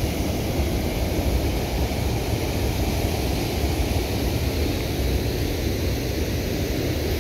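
Steady rush of muddy river water spilling over a low concrete weir, with a low wind rumble on the microphone.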